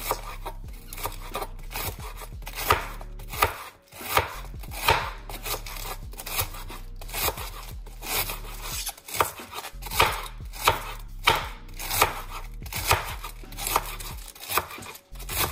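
Kitchen knife shredding a head of green cabbage on a cutting board: a regular series of sharp cutting strokes, about one and a half a second, with a short pause about four seconds in.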